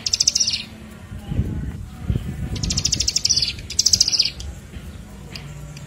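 Bar-winged prinia (ciblek) calling in rapid trills of fast repeated high notes, in bursts of under a second: one at the start and two close together in the middle. A low rumbling noise comes in between, about a second and a half in.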